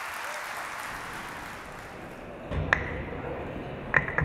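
Audience applause dying away over the first two seconds. Then a low hum with a few sharp clicks near the end.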